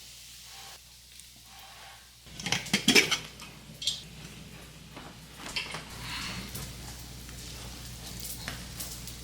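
A quick run of sharp clinks and knocks, like hard utensils or dishes being handled, begins about two and a half seconds in. Fainter knocks follow, over a steady low hiss.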